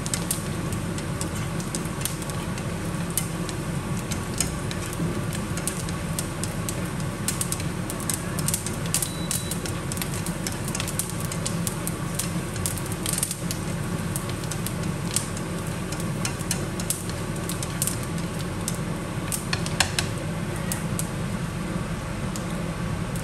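Oil sizzling in a frying pan as thin slivers of aromatics fry, with frequent sharp little pops and crackles throughout and a steady low hum underneath.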